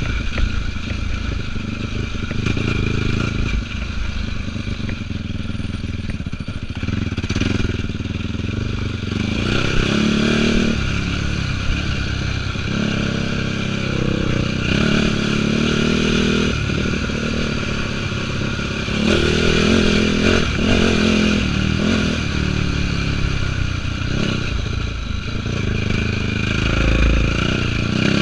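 2004 Yamaha YFZ450 quad's single-cylinder four-stroke engine running under changing throttle, its pitch rising and falling as it is ridden, with scattered knocks and rattles.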